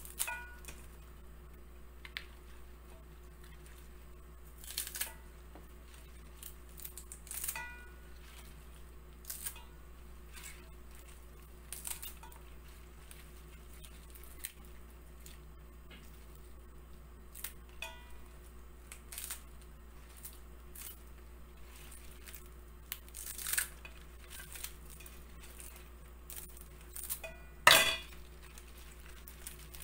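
Scattered kitchen handling sounds: light clinks and taps of utensils and dishes with some soft rustling, and one sharper knock near the end. A steady low hum runs underneath.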